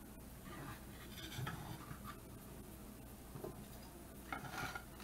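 Plastic spatula scraping through chicken pie in a cast iron skillet and onto a plate: soft scrapes and rubbing, once about a second in and again near the end.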